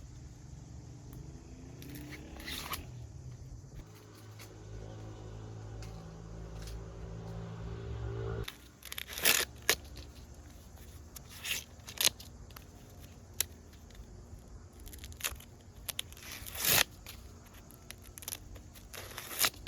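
A low steady hum with a faint, slowly rising tone, which cuts off about eight and a half seconds in. After it comes a series of short, sharp tearing or ripping sounds, a few seconds apart.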